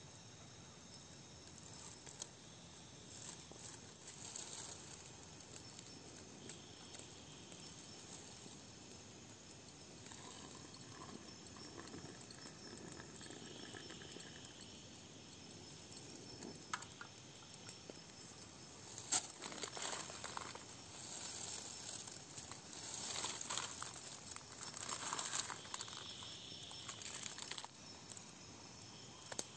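Crickets and other night insects chirring steadily, with clinks, taps and rustling from aluminium camp cookware being handled, busiest in the second half.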